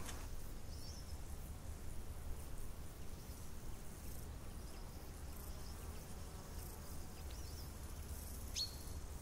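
Faint outdoor field ambience: insects buzzing over a low steady rumble, with a short high chirp about a second in and another near the end.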